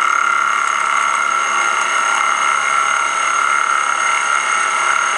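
Milling machine end mill cutting into a block of aluminium: a steady, high-pitched machining whine made of several tones at once.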